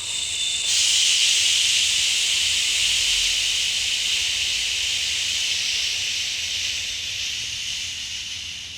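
One long hissing exhale through the teeth, held steady for about eight seconds and slowly fading near the end, as in a controlled breathing exercise.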